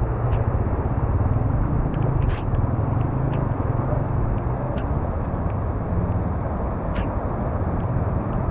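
Car engines running through a flooded street: a steady low rumble with a few faint clicks.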